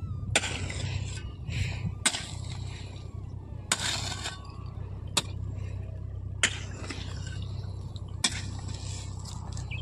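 Irrigation water running along a furrow over a steady low hum, with sharp knocks every second or two and a longer scrape of a hoe in the soil about four seconds in.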